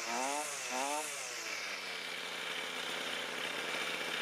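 Two-stroke engine of a Toro string trimmer revved in quick throttle blips, about two a second, its pitch rising and falling with each. About a second in it drops back to a steady idle.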